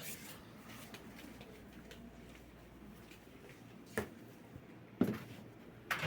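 Three sharp clicks or knocks about a second apart, the last one the loudest, over a faint steady hiss.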